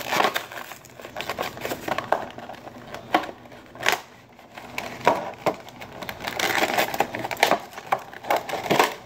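Plastic blister packaging being crinkled, bent and pulled apart by hand to free a toy: irregular crackles, crunches and sharp clicks.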